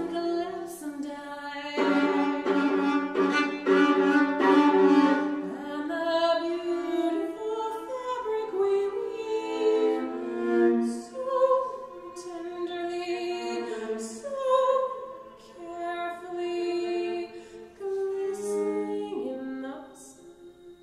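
Solo violin played with the bow: rapid repeated bowed chords for the first few seconds, then a slower melody of held notes that fades out near the end.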